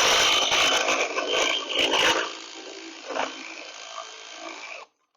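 Power ratchet with a 3/4-inch socket running a bolt down, loud for about two seconds, then running quieter and stopping shortly before the end.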